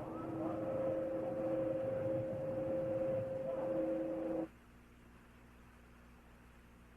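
Open radio loop with steady hiss and two steady tones and no one speaking. It cuts off abruptly about four and a half seconds in, leaving only a faint low hum.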